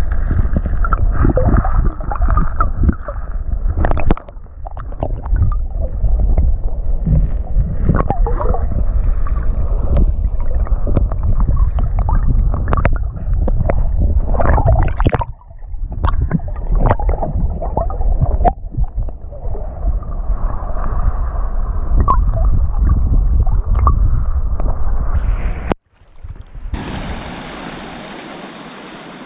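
Muffled underwater sound of shallow surf heard through a submerged camera: a heavy low rumble and sloshing, with scattered clicks and knocks. Near the end it switches to the steady hiss of wind and surf above the water.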